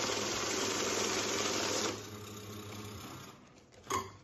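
Electric banknote counting machine running fast as it riffles a stack of notes through. It drops off about two seconds in and has stopped by about three seconds. A brief thump comes near the end as the counted stack is lifted out.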